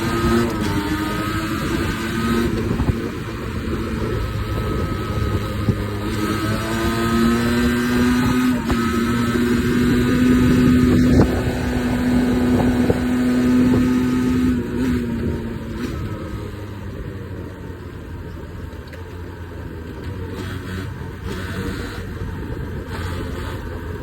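Beta RR 50 two-stroke 50 cc enduro motorcycle engine running under way. The revs climb about a third of the way in, hold high for several seconds, then drop back, and the engine sounds quieter over the last third.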